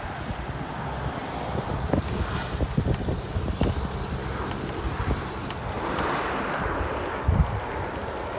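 Gusty wind buffeting the microphone over the steady rushing of a jet airliner's engines on approach, swelling slightly about six seconds in.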